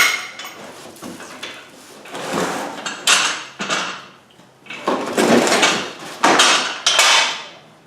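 Metal parts of a motorcycle lift being pulled out of their box and handled: a sharp knock at the start, then a series of scraping, clattering bursts.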